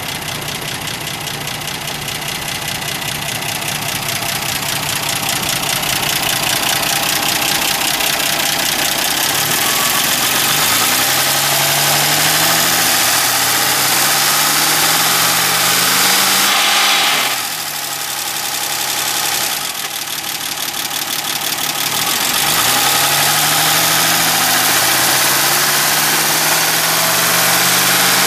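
1965 Ford Mustang engine running with a knock that the owner takes for a bad lifter. It idles steadily, then is revved up slowly and let drop back twice. At the higher revs the owner reports a marble-like rattle that he cannot yet explain.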